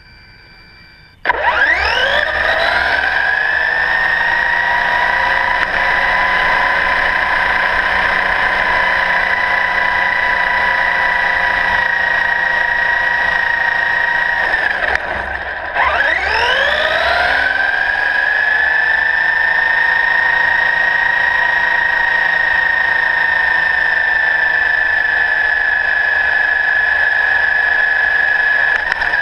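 Ansmann RC buggy's motor and drivetrain whining at full speed. The pitch climbs steeply about a second in and then holds high and steady; near the middle it falls away briefly and winds up again. Tyre rumble on asphalt lies underneath.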